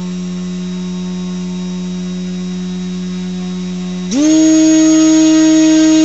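Brushless 2206 2150 kV quadcopter motor spinning a 6x4.5 propeller on a thrust stand, driven by a LittleBee 20A ESC: a steady whine at about 6,900 rpm that steps up sharply in pitch and loudness about four seconds in as the throttle is raised to about 11,000 rpm.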